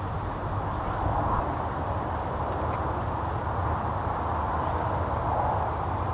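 Steady outdoor background noise: an even hiss-like rumble with a low hum beneath it, with no distinct calls, footsteps or other events.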